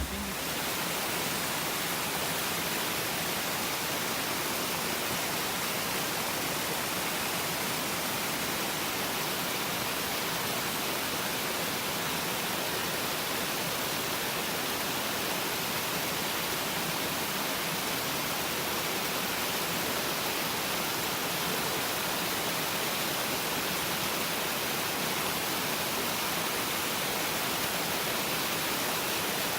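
A steady, even rushing noise that begins abruptly and holds unchanged, with no rumble underneath.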